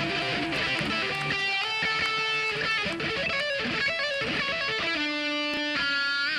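Live rock band playing, with an electric guitar lead line of held notes that step from pitch to pitch over drums and bass; a long note near the end is bent upward.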